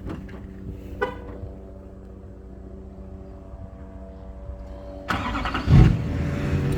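Truck engine cranked and started about five seconds in, then running steadily; before that a quieter steady hum.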